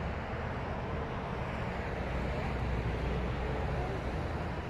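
Road traffic: cars driving past on the road below, a steady noise with a deep rumble underneath.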